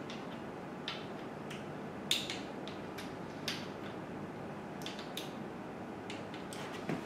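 Scattered sharp clicks and ticks of a click-type torque wrench and its ratchet head as the generator-cover bolts are run down and torqued to 55 inch-pounds, a few of them a second apart, over a steady background hiss.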